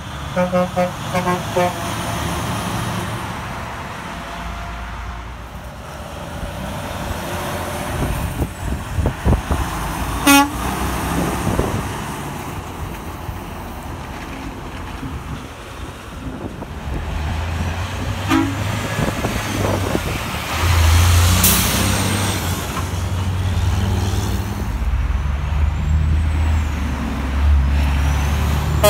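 A Freightliner 122SD semi-truck's Hadley quad air horns sound a chord in several short blasts at the start, then a single short horn toot comes about ten seconds in. In the second half a semi-truck's diesel engine runs low and steady as it passes, with a short hiss about 21 seconds in.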